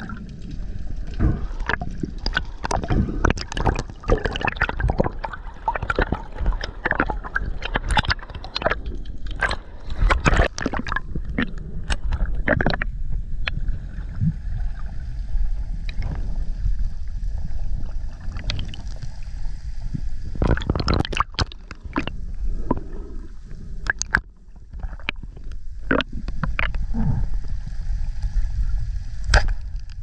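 Underwater water noise heard through a submerged camera: a steady low rumble and gurgling of water moving past as a freediver swims. Many irregular clicks and knocks run through it.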